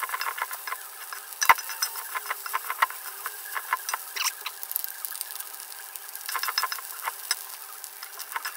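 Fried rice sizzling in a wok as a spatula stirs and scrapes through it, giving many quick clicks and scrapes over a steady hiss, with one sharp knock about a second and a half in.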